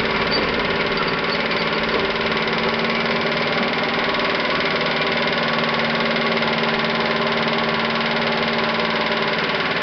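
Meccano model steam donkey pump running steadily under steam, its chain-and-sprocket drive and gearbox turning with a fast even clatter and a steady squeak from the gearbox.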